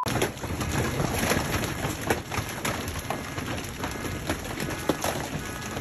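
Storm noise: a steady dense hiss of rain, with many small scattered crackles and pops.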